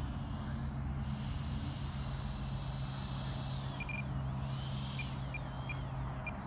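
Twin 80 mm electric ducted fans of a Freewing F-14 Tomcat RC jet whining faintly at a distance, the whine bending up and down in pitch, over a low steady hum.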